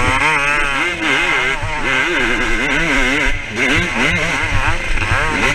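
Motocross bike engine running hard and close up, its pitch swinging rapidly up and down as the rider works the throttle and gears over the track.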